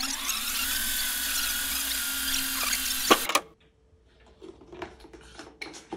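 A loud motor whirring like a drill, with a whine that rises and then holds steady, cut off abruptly about three seconds in. Then quiet, with faint clicks and rustling.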